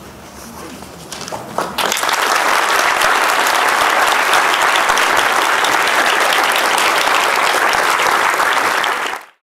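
Audience applauding: a few scattered claps at first, then full, steady applause from about two seconds in, cut off abruptly near the end.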